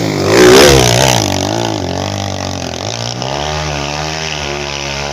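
Motorcycle engine revving hard under load as it climbs a steep dirt hill. It is loudest about half a second in as it passes close, then the revs rise and fall before settling into a steadier, wavering note.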